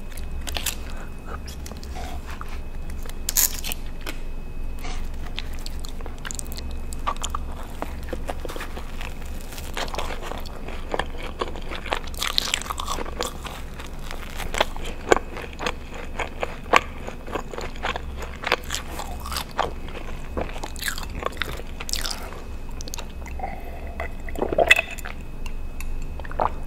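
Close-miked eating: biting into and chewing a Pizza Hut garlic breadstick, a long run of short, sharp bite and chewing clicks and mouth sounds, with a few louder bites in the second half.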